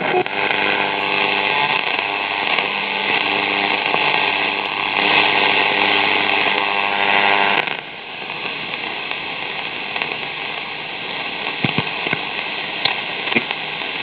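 Static from a National Panasonic 2-in-1 radio cassette player's speaker while the band is switched and the dial tuned between stations: a steady buzzing tone over hiss that drops suddenly about seven and a half seconds in to quieter, crackly static.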